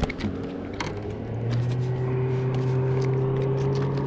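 A boat motor running with a steady hum that rises a little in pitch and level about a second in, then holds. Scattered light clicks and knocks sound over it.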